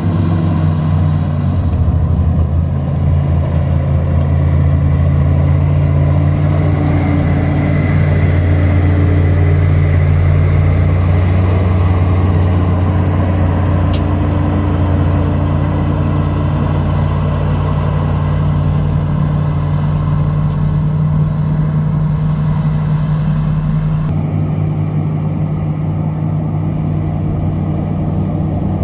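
Heavy construction machine's diesel engine running steadily under load, with a deep, even hum. The engine note shifts abruptly about a second and a half in and again around 24 seconds in, and there is a single sharp click about halfway through.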